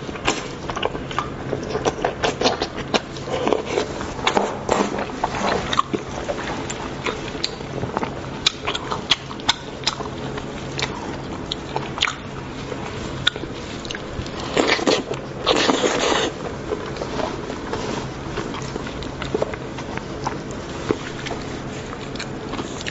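Close-up eating sounds: a person chewing and biting braised lamb's head meat in garlic sauce, with wet clicks and crackles as the meat is torn off the head by gloved hands. A louder, longer noisy burst comes about fifteen seconds in.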